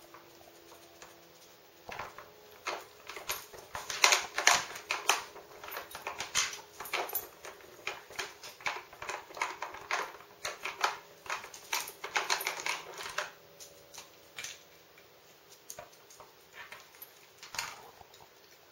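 Hard plastic clicking and knocking as a dog noses at and pulls the bone-shaped pegs out of a plastic treat-puzzle board, a quick irregular clatter that thins out toward the end.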